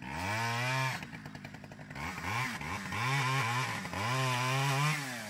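Gas chainsaw revving up and dropping back in about four bursts while cutting pine limbs.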